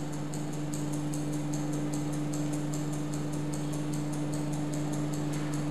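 Mechanical stopwatch ticking evenly, about five ticks a second, over a steady low hum, as the torpedo's run to the target is timed.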